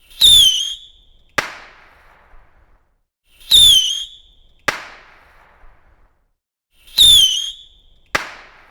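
Whistling fireworks going off three times. Each is a short whistle that drops slightly in pitch, followed about a second later by a sharp bang.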